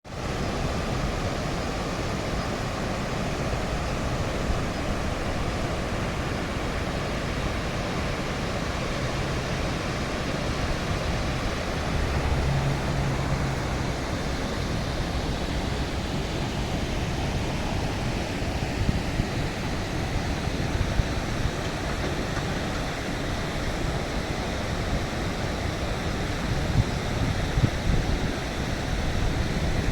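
Steady rushing of river water at a weir, with wind gusting on the microphone more and more toward the end.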